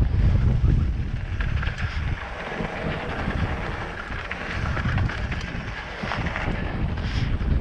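Wind buffeting the microphone during a mountain-bike descent, over mountain-bike tyres rolling on the dirt trail and the bike's small rattles and clicks. The wind rumble eases for a few seconds in the middle, then builds again.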